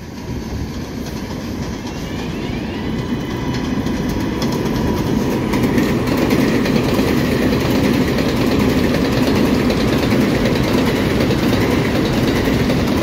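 R188 subway train on an elevated line ripping through a station without stopping, its wheels clattering over the rail joints. The noise builds over the first several seconds as it draws alongside and then holds steady, with a faint rising whine a few seconds in.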